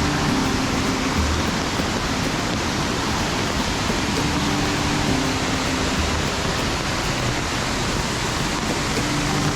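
Steady rushing of a waterfall with a heavy flow of water, falling about 15 metres.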